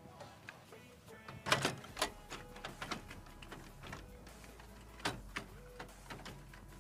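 Clicks and clunks of plastic and metal as the yellow fixing (fuser) unit of a Canon iR 3245-series copier is pushed and shifted in its slot. The loudest knocks come about one and a half to two seconds in and again about five seconds in.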